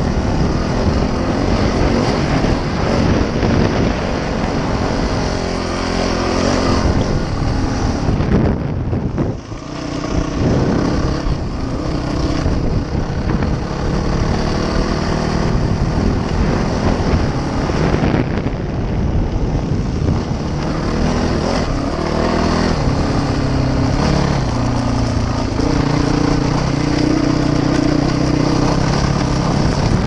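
Dirt bike engine running hard under throttle, its pitch rising and falling as the rider speeds up and backs off, with wind noise on the helmet-mounted microphone. The engine drops off briefly about nine seconds in, then picks up again.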